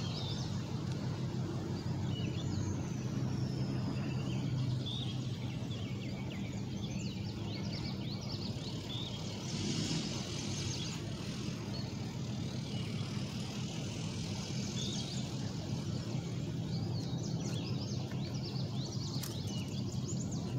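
Steady low engine drone, with short bird chirps over it.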